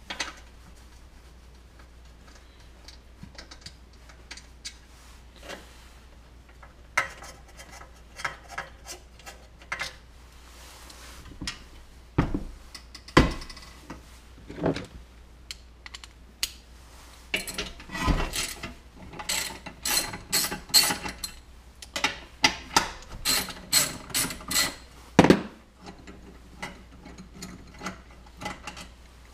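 A 3/8-inch drive ratchet clicking as 8 mm bolts are backed out of a Briggs & Stratton small engine's starter cover. The clicks are sparse at first and come in quick runs in the second half, with a few louder knocks of metal tools and parts.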